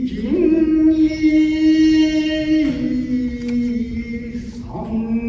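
Shigin, Japanese poetry recitation: a single voice chanting in long held notes, stepping up in pitch about half a second in, dropping near the three-second mark and rising again near the end.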